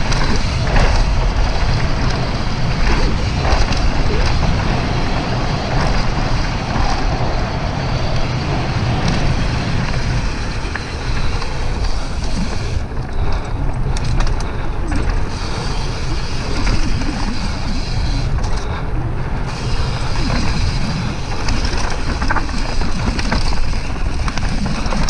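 Wind rushing over the camera microphone and tyres rolling over a dirt trail as a Propain Tyee full-suspension mountain bike descends at speed, with frequent short knocks and rattles from the bike over bumps.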